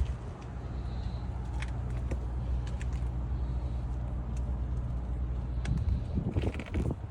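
Car engine idling with a steady low hum that stops about six seconds in, followed by a brief mix of handling noises.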